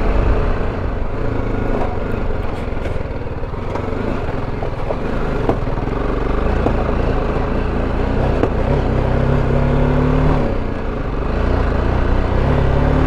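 BMW G310GS single-cylinder engine running as the motorcycle rides a rough dirt track, with a few sharp clicks of stones or rattle early on. About two-thirds through, the engine note rises with the throttle, drops off briefly, then rises again near the end.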